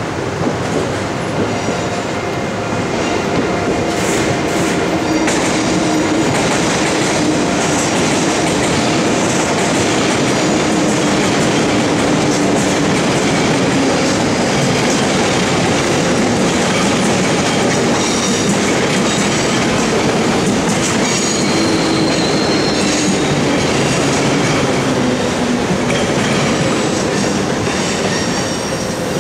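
Double-deck electric commuter train running past close below, a steady loud rolling rumble of its wheels on the rails and points, with clattering and faint high wheel-squeal tones now and then.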